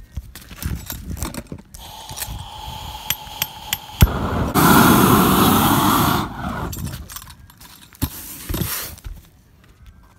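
Clicks and scrapes of the small torch and modified bitumen sheet being handled, then a propane roofing torch flares with a loud rush of flame for about two seconds midway before dying away.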